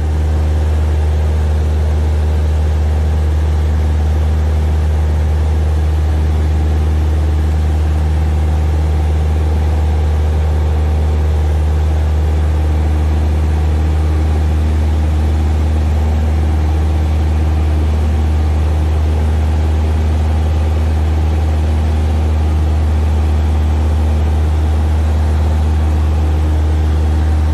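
Steady, loud, low engine drone with several constant tones, unchanging throughout.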